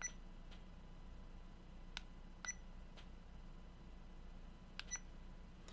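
Faint button clicks on an Aokon action camera as its menu is stepped through, some presses answered by a short, high electronic beep from the camera. The presses come in about three pairs, a couple of seconds apart.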